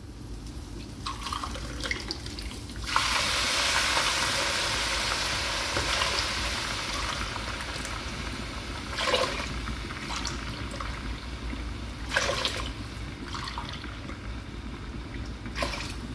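Water poured from an electric kettle into a ceramic cup, a steady splashing stream that lasts about six seconds and tails off. A few short splashes and knocks follow as the cup is tipped into the cooking pot.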